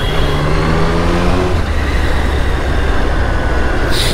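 Triumph Street Triple's three-cylinder engine pulling under way, its pitch rising steadily for about the first second and a half, then a steady rumble. A short hiss comes near the end.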